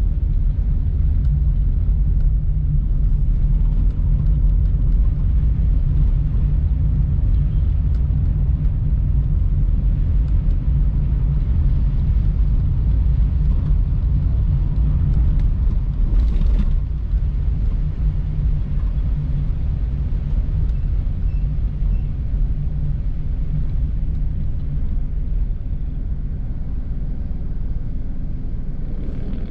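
A car driving along a wet city road: steady low engine and road rumble, with a brief whoosh a little past halfway, after which the rumble eases slightly.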